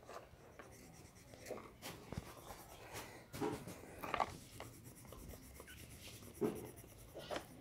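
Coloured pencil scratching faintly on notebook paper in short, uneven strokes, with a few soft ticks and knocks.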